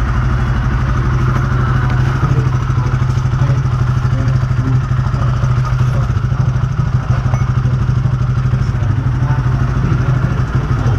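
Motorcycle engine idling steadily at an even pitch.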